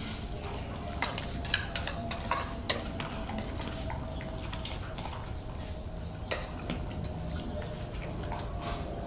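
Metal clinks and scrapes: a spoon knocking against a metal pot and stainless steel bowls as dog food is dished out, with a quick run of clinks in the first few seconds and the sharpest one at about two and a half seconds. After that there are a few scattered clinks of dogs eating from the steel bowls.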